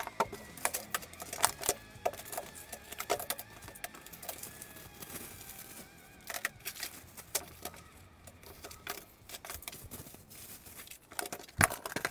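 Small cardboard boxes of rimfire cartridges being picked up, shuffled and set down on a tabletop: irregular knocks and clicks, with the loose rounds rattling inside the boxes.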